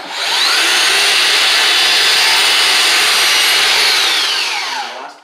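Power miter saw switched on and cutting a walnut face-frame piece to its marked angle. The motor whines up to speed, runs steadily through the cut for about four seconds, then winds down near the end with a falling whine once the trigger is released.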